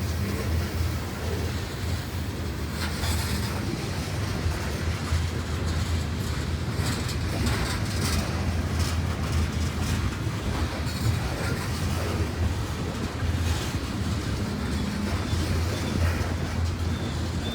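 Norfolk Southern freight train rolling past with a steady low rumble, broken by scattered sharp clicks and clanks from the wheels and cars.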